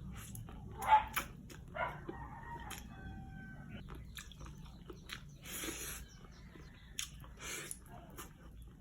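A rooster crowing in the background, a held call about two to three seconds in, amid the clicks and smacking of someone chewing close by.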